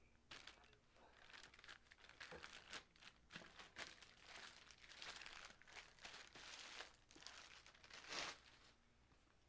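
Packaging being handled and unwrapped, with irregular crinkling and rustling and a louder rustle near the end.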